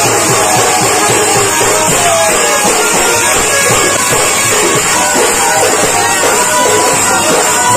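Loud kirtan music with a fast, steady drum beat and a melody over it.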